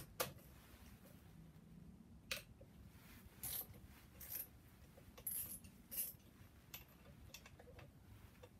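Faint, scattered metallic clicks and clinks of hand tools working on the engine, with a few short rustles in between.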